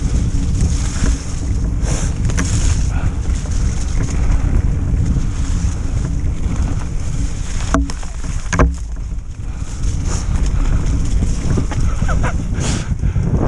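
Wind buffeting an action camera's microphone on a moving mountain bike, with the rumble of tyres on a dirt and leaf trail. Two sharp knocks a little past the middle as the bike jolts over the ground.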